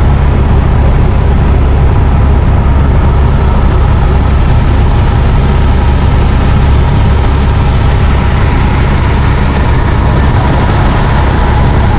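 Helicopter engine and rotor noise heard from inside the cabin: a loud, steady low rumble with a hiss over it, unchanging throughout.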